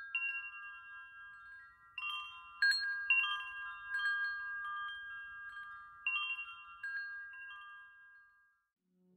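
Wind chimes tinkling: scattered clusters of bright, high, ringing strikes that ring on and die away near the end.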